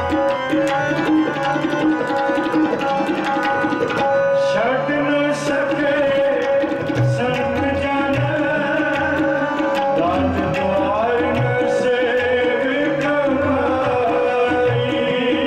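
Sikh devotional kirtan: harmonium playing sustained chords over steady tabla strokes. A man's singing voice comes in about four and a half seconds in.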